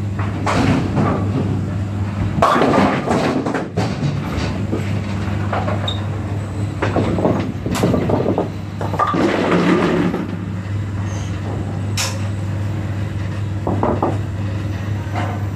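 Bowling-centre machinery behind the lanes: a steady low hum with irregular spells of clattering and sharp knocks from pins and pinsetter mechanisms.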